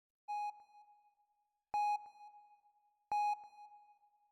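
Radar-screen ping sound effect: an electronic sonar-style ping sounding three times, about a second and a half apart, each starting sharply and fading out.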